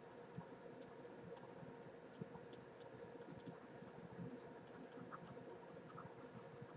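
Faint scattered ticks and light scratching of a stylus writing on a tablet, over near-silent room tone.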